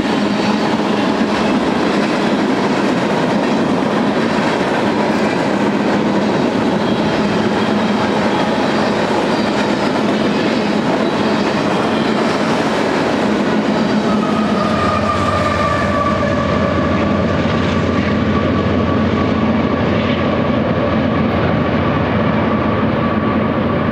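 Freight train of tank cars rolling past close by, a steady loud rumble of wheels on rail. About halfway through, a steady high-pitched ringing tone joins it.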